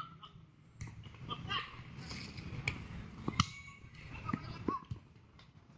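Scattered short shouts and calls from football players on the pitch, with a few sharp knocks, the loudest about three and a half seconds in.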